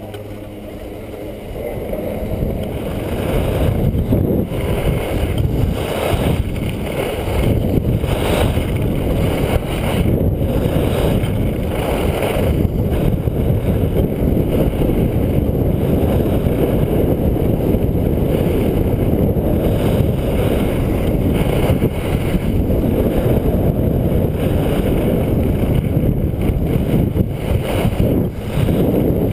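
Wind buffeting a body-worn action camera's microphone during a fast ski descent, a dense low rush that builds over the first few seconds and then holds steady. Skis scrape and hiss on the snow through the turns.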